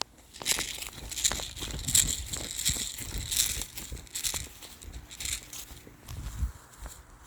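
Footsteps crunching and rustling through dry leaves and brush, with irregular crackling twigs and gear rubbing, as a player moves on foot.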